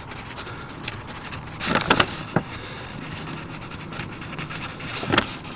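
Hand-writing on a paper sign-in sheet: the writing tip scratching and rubbing across the paper in short strokes, with a few louder strokes about two seconds in and near the end.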